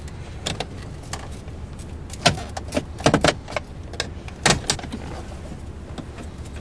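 Plastic dash trim being pried loose with a plastic pry tool: a series of sharp clicks and snaps as its retaining tabs are worked free, several close together about three seconds in. A steady low hum lies underneath.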